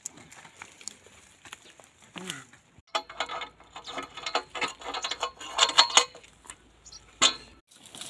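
Rustling and clattering in dry straw and brush as a pair of bullocks is handled and yoked to a wooden plough. A dense run of sharp clicks and rustles starts about three seconds in, is loudest near six seconds, and ends in a single louder knock near the end.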